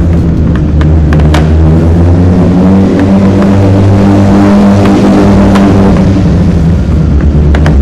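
An engine running steadily at a constant speed, a loud low hum, with scattered sharp clicks and knocks over it.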